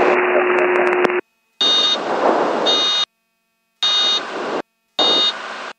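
Cockpit audio of a Beechcraft Bonanza heard through the aviation intercom. A radio hiss with a steady hum cuts off about a second in. Then come four short bursts of cockpit noise, each carrying a high buzzing warning tone, with the intercom cutting to dead silence between them.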